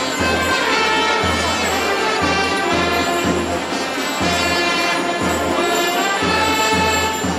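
Music led by brass instruments, playing held notes over a steady low beat.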